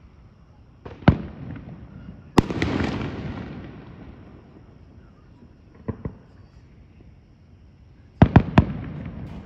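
Aerial fireworks shells bursting. A sharp bang comes about a second in, then a louder one at about two and a half seconds followed by a long fading rumble. Two fainter pops come around six seconds, and a quick run of three bangs near the end.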